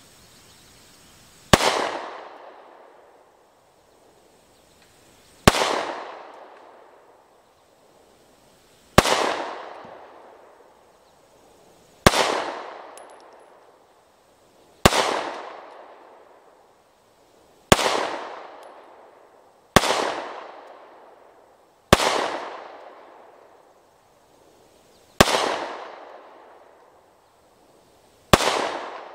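Taurus GX4 9mm pistol firing ten shots of 115-grain full metal jacket in slow, deliberate fire, about two to three seconds apart. Each shot is followed by an echo that dies away over about two seconds.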